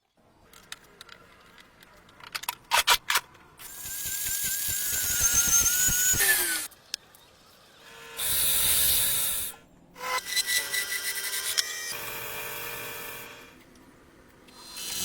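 Workshop power-tool noise in several separate spells, each starting and stopping abruptly, with a few sharp clicks near the start.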